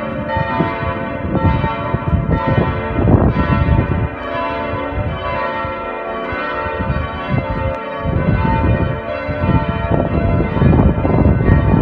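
Church bells ringing continuously, their many tones overlapping and hanging on, with a low rumble underneath.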